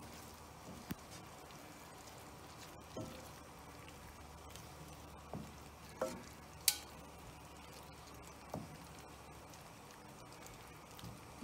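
Wooden spatula stirring fresh tagliatelle through pesto sauce in a frying pan, over a faint steady sizzle. Soft knocks of the spatula against the pan come every second or two, with one sharper click a little past halfway.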